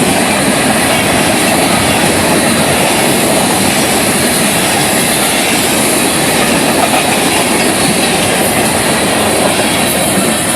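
Freight cars of a Florida East Coast Railway train rolling past close by: a loud, steady noise of steel wheels running on the rails.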